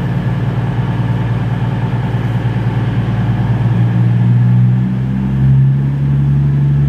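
Avanti West Coast passenger train starting to pull out of the platform, its engines running with a steady low hum that rises slightly in pitch and level about four seconds in.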